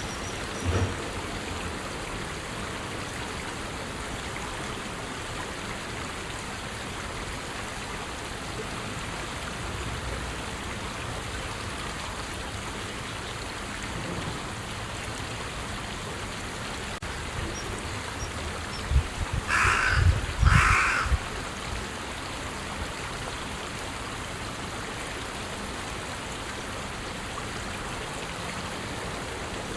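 Carrion crow giving two short, harsh caws about a second apart, over a steady background hiss. A few low thumps come with the calls.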